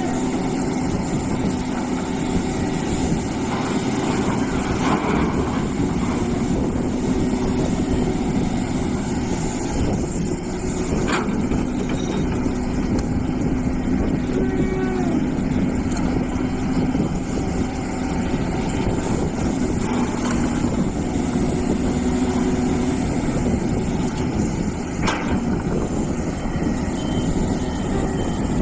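Hitachi EX450 hydraulic excavator working: a steady diesel engine and hydraulic drone with held tones, broken by two sharp metallic knocks. Near the end, a reversing alarm starts beeping.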